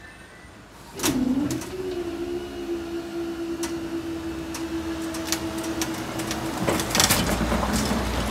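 Level crossing barrier mechanism raising the barriers: a motor starts suddenly about a second in, dips in pitch, then runs with a steady hum and scattered clicks and rattles until it stops near the end. As it stops, a car drives over the crossing with tyre noise and a low rumble.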